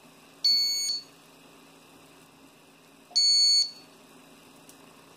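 Kitchen appliance's electronic beeper sounding two identical high-pitched beeps, each about half a second long and about two and a half seconds apart.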